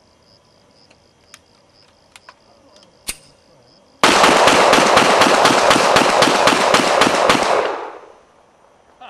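A rapid string of loud bangs, about five a second, starting suddenly about four seconds in and lasting roughly three and a half seconds before fading out; crickets chirp steadily before it.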